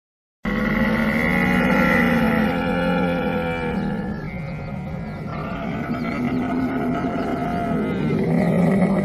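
Camel calling: a long, rough, pitched vocalisation that starts abruptly about half a second in, eases off in the middle and swells again near the end.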